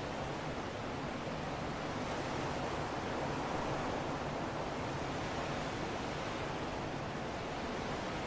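Wind blowing steadily: an even rushing noise that swells slightly a few seconds in.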